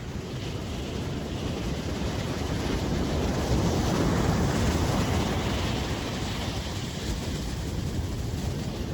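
Ocean surf with wind buffeting the microphone, a steady rushing with a heavy low rumble. It swells to its loudest about four seconds in, then eases.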